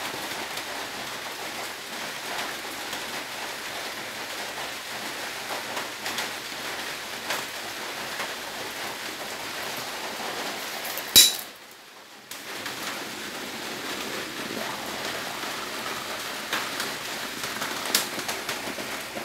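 Aluminium moka pot on a gas flame, coffee sputtering and bubbling up through the spout into the upper chamber as a steady crackling hiss with small pops: the pot is in its brewing stage. About 11 seconds in comes one sharp metallic clack, the hinged lid snapping shut, after which the sputter is briefly quieter.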